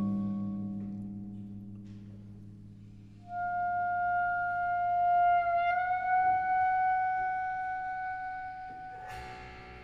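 Clarinet and prepared piano playing: a low piano chord dies away, then about three seconds in the clarinet enters on one long held note that bends slightly up in pitch midway. Near the end a sharp struck note sounds from inside the prepared piano.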